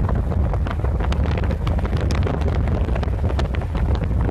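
Strong storm wind from a tornado buffeting a phone's microphone: a loud, steady low rumble with dense crackling over it.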